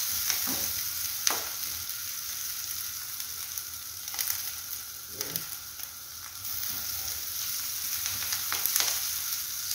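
Food sizzling steadily in hot oil in a frying pan while a wooden spatula stirs it, with a few sharp clicks of the spatula against the pan.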